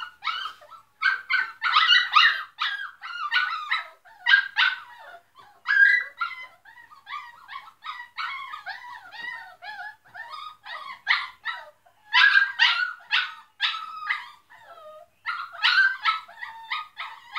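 Dogs shut in a wire crate barking nonstop in rapid, loud, high-pitched yips, several a second, in bouts with short pauses between them.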